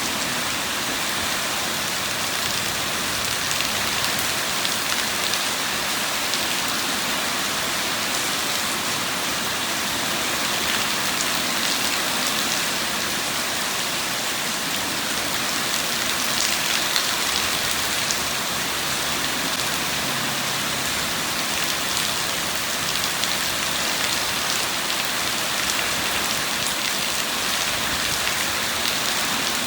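Steady rain falling, a dense even hiss with many separate drop hits and no thunderclap.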